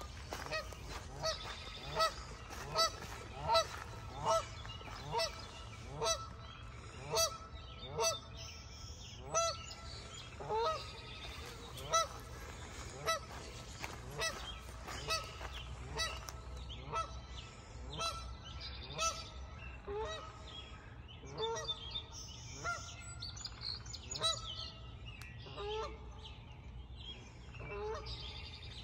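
Geese honking over and over, about one call a second at first, then more scattered, with several birds calling over one another later on.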